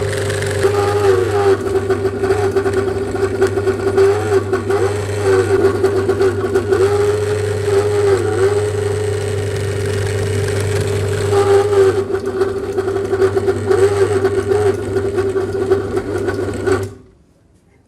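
Electric meat grinder running under load as it grinds sweets, its motor tone dipping in pitch briefly several times as it bogs on the candy. The motor cuts off suddenly near the end.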